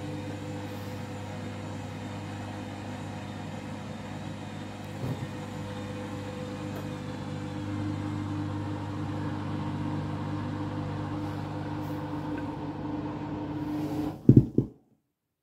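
Candy front-loading washing machine running with a steady motor hum and a whine, a little louder from about halfway, while in a suds lock on the delicates cycle. A couple of sharp loud knocks sound near the end, then the sound cuts off.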